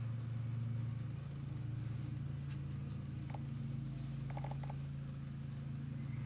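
Steady low background hum, with a few faint short ticks about halfway through.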